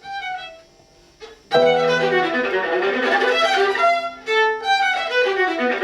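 Viola played with the bow: a brief note at the start, then, about a second and a half in, a continuous passage of moving notes over a long held low note.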